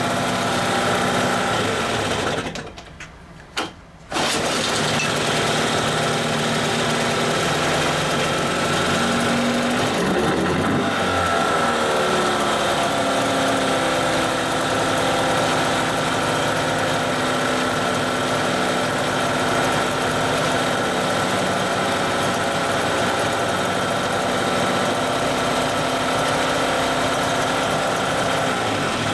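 1980 Johnson 15 hp two-cylinder two-stroke outboard running. It dies about two and a half seconds in, catches again about a second and a half later, changes speed briefly around ten seconds in, then runs steadily and cuts off at the end.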